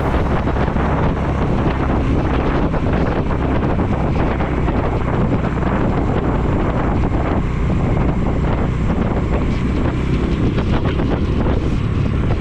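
Heavy wind buffeting on the microphone of a motorcycle riding at road speed, with the engine running steadily underneath.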